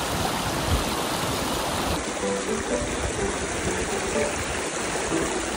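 Shallow mountain stream rushing and splashing over rocks. Light background music with short melodic notes comes in about two seconds in.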